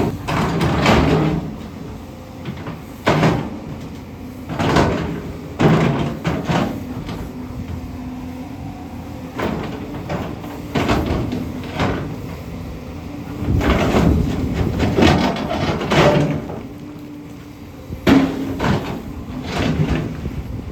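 JCB 245 HD LR long-reach excavator digging rock: its bucket scrapes and knocks against the rock in a string of irregular clanks every second or two, over the steady hum of the engine.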